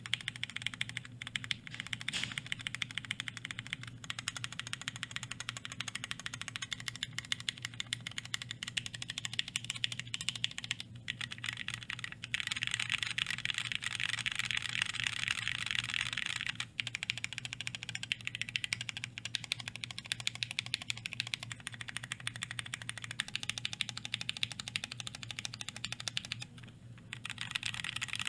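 Mechanical keyboard being typed on, the modifier keys included: a KBDFans ANODE 60 aluminum tray-mount case with Durock Speed tactile switches on an aluminum plate and PBT keycaps. It makes a fast, continuous run of fairly high-pitched clacks, with a brief pause near the end.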